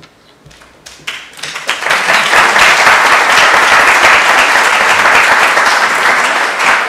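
Audience applause: a few scattered claps, then full applause that builds within about a second, holds steady, and eases a little near the end.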